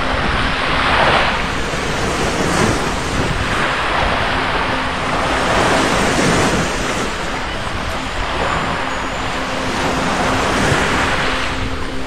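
Surf on a sandy beach: waves breaking and washing up the shore, swelling and ebbing in surges every few seconds.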